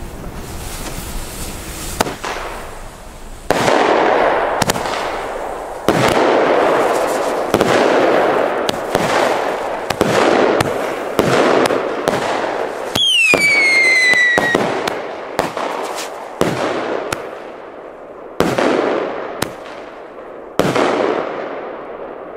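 Single-shot firework tubes going off one after another: sharp bangs about every second, each trailing off over about a second. About 13 seconds in, a falling whistle lasts about a second and a half.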